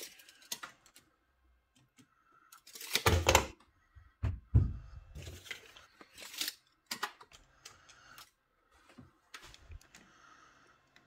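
Handling sounds: scattered clicks and knocks, with a louder thump about three seconds in and another thump about a second and a half later.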